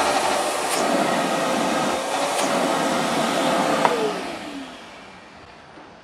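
Craftsman 9-gallon wet/dry shop vac running with a steady motor whine, its hose nozzle held to a 5-pound dumbbell that the suction can't lift. About four seconds in there is a click, and the motor winds down with a falling pitch.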